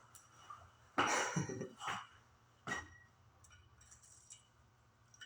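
Handling noise from working on a rusty BMX wheel, with a sharp light metallic clink a little before the three-second mark. About a second in, and again near two seconds, a short throaty cough-like sound from a person.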